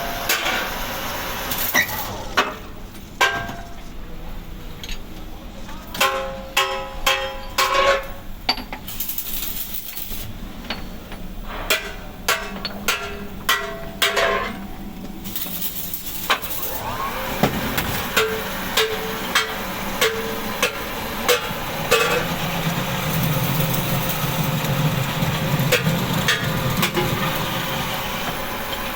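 Repeated hammer blows on metal, irregularly spaced, many of them leaving a brief ringing tone. A low steady hum comes up in the second half.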